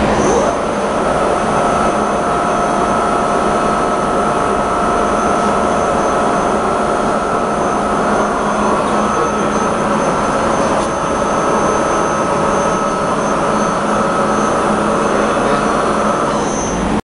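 Asquith Butler CNC bed mill running under power: a loud, steady mechanical drone with high whining tones that come in about half a second in. It cuts off suddenly near the end.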